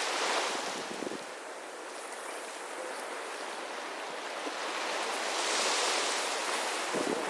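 Sea waves breaking on a beach: one wave washes in right at the start, and another swells up and falls away about five to seven seconds in.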